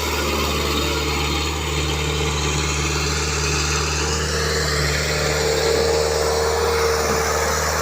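Excavator's diesel engine running steadily at an even pitch.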